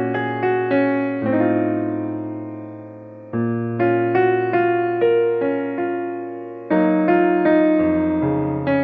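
Background keyboard music in a piano sound: soft chords and melody notes struck and left to ring and fade, with new phrases beginning about a second, three seconds and nearly seven seconds in.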